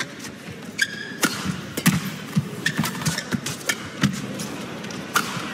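Badminton rally: sharp, irregular racket strikes on a shuttlecock and players' footfalls on the court, with a couple of brief high squeaks from shoes on the court floor.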